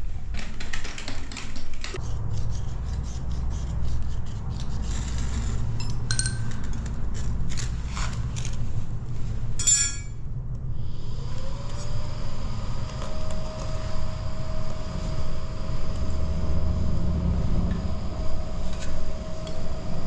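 Scraping, rubbing and clicking of camp cookware being handled, over a constant low rumble of strong wind on the microphone. About halfway through the clicking stops and a steady whistle-like tone starts, gliding up and then holding.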